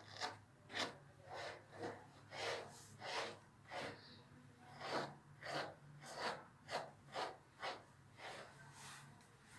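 Faint, rhythmic swishing of strokes being worked through a dog's long, curly coat, about two strokes a second, with brief pauses.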